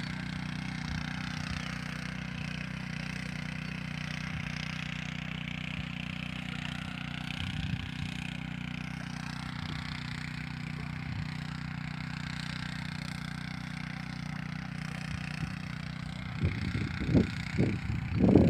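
Small tractor's engine running steadily while tilling soil. Several louder rough bursts come in near the end.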